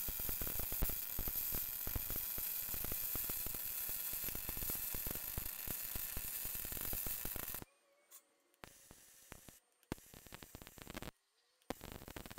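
Electric arc welding on a steel tractor wheel rim: a steady, dense crackle that cuts off suddenly about seven and a half seconds in. It is followed by three shorter bursts of crackling as the arc is struck again.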